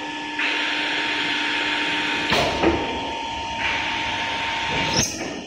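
Automatic glass drilling machine at work: a steady motor whine runs under two long stretches of harsh hissing from the drilling head, broken by a sharp knock about two seconds in and another near the end.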